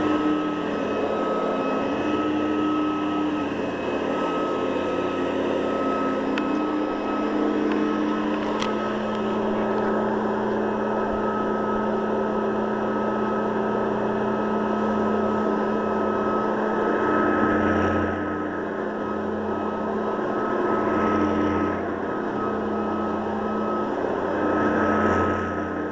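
Hoover Guardsman upright vacuum cleaner running on a sandy rug: a steady motor hum with a high whine, swelling briefly a few times in the second half.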